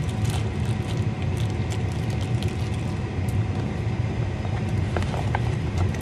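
Steady, loud hum of a kitchen fan running, with faint crinkles of plastic wrap and a plastic food bag being handled.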